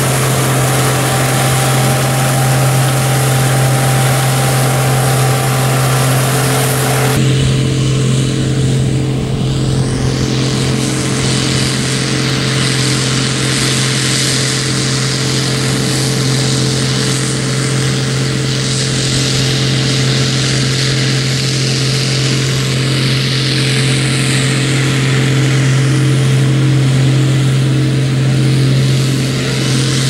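Case IH 1660 combine running at steady governed speed while harvesting soybeans: a constant, loud diesel engine drone mixed with the hum of the threshing machinery. The high hiss drops away abruptly about seven seconds in, while the drone carries on unchanged.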